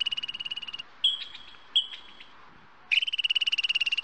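A xerus (African ground squirrel) call: a high-pitched, rapidly pulsed chirping trill, broken by two short chirps about one and two seconds in, then starting again near the end.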